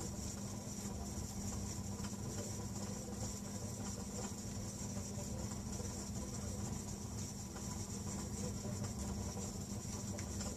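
Steady low hum with a constant high hiss over it, unchanging throughout, with no distinct knocks, calls or other events.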